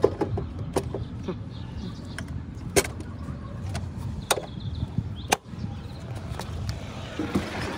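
Sharp metallic clicks and clunks, one much louder about three seconds in, as the latch and locking knob at the base of an aluminium motorcycle side case are worked while the case is seated on its mounting rack. A steady low rumble runs underneath.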